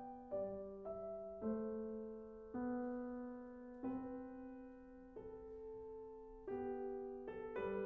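Slow, gentle piano music: a melody of single struck notes, each left to ring and fade before the next.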